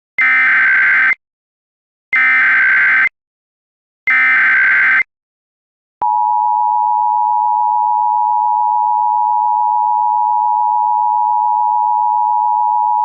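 Emergency Alert System tones: three bursts of SAME header data, each about a second long and two seconds apart. About six seconds in, the steady EAS attention tone starts and holds. Together they signal that an emergency alert message is about to follow.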